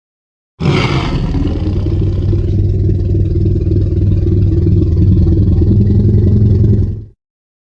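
Tyrannosaurus rex sound effect: one long, low rumbling growl that starts about half a second in with a harsher, brighter onset, holds steady for about six seconds, and cuts off abruptly near the end.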